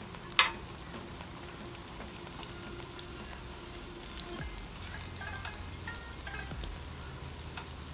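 Hot oil sizzling steadily as onion-and-potato gram-flour pakoras deep-fry in a wide wok, with a single sharp knock about half a second in.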